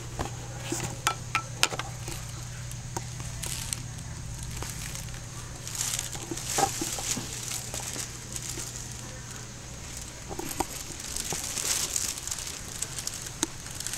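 Thin plastic grocery bag crinkling and rustling in irregular bursts as a cat moves underneath it, busiest about six and eleven seconds in.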